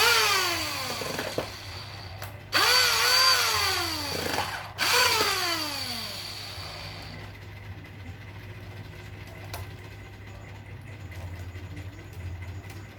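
Electric hand drill with a rewound motor run in three short bursts, each starting suddenly and whining down in pitch as the motor coasts to a stop. The second burst is cut off sharply and followed at once by the third. After that only a low background hum remains.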